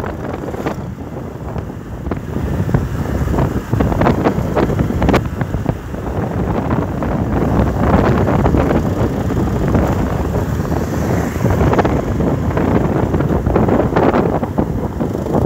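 Wind buffeting the microphone on a moving motorcycle, mixed with the steady run of the motorcycle's engine and road noise.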